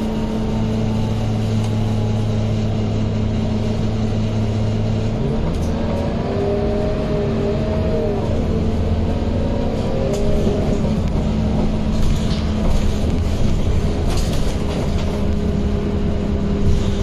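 Scania K230UB bus on the move, heard from inside the cabin: a steady engine drone with the loud whine of its ZF automatic gearbox. The low tone steps down about five seconds in, and the whine then rises and falls for a few seconds. A few knocks and rattles come in the second half.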